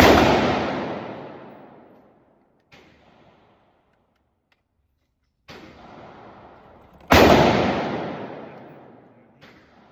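Two loud gunshots about seven seconds apart, each with a long echo that fades over a couple of seconds. Fainter shots come between them.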